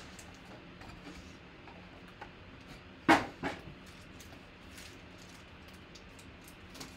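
Foil trading-card packs and their cardboard box being handled, with faint crinkles, rustles and clicks. About three seconds in, two loud knocks in quick succession.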